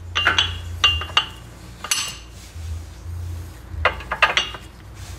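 Sharp metallic clinks as new brake pads are worked into a disc brake caliper bracket, their steel backing plates knocking against the bracket, several irregular clinks over a steady low hum.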